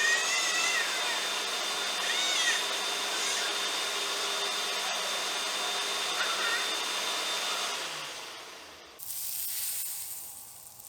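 A kitchen blender motor running steadily, with a few short high squeals over it, then winding down about eight seconds in. About a second later a high sizzling hiss starts as food goes into a hot pan.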